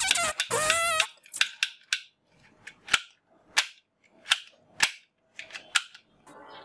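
Yellow plastic toy revolver giving a series of sharp snaps as it is clicked, about eight at uneven intervals of half a second to a second.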